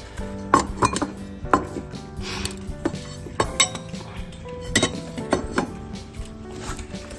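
Metal cat food bowls clinking and clattering as they are handled and set down on a wooden floor: a string of sharp, irregular clinks that ring briefly.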